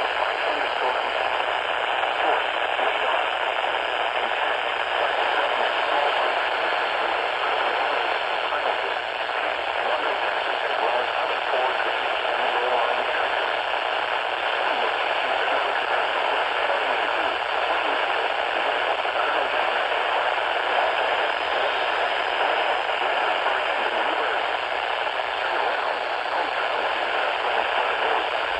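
Steady radio static: an even, thin hiss from a radio receiver with no voice coming through.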